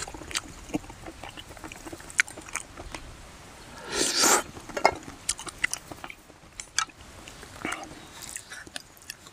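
Person eating a bowl of pork-bone soup (gamjatang) and chewing, with scattered small clicks. A louder noisy sound lasts about half a second, about four seconds in.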